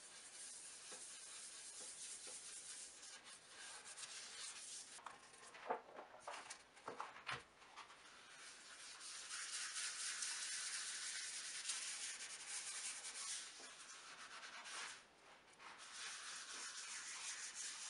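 A gloved hand rubbing and smoothing over a wooden board and a thin plastic sheet laid on it: a faint, continuous rubbing rustle, with a few sharp crinkles about six to seven seconds in.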